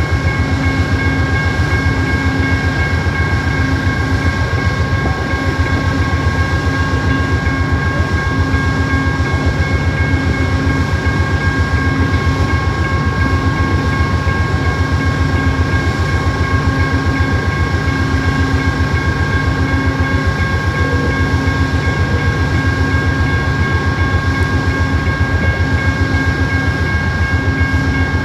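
Amtrak GE P42DC Genesis diesel locomotives idling while the train stands at the station. The V16 diesel engines make a fast, even low throb, with a few steady high-pitched whines over it and a low hum that comes and goes.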